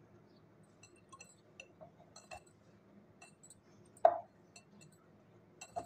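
Glass mixing bowl clinking lightly as stiff dough is kneaded in it by hand, with one sharper clink about four seconds in and another near the end.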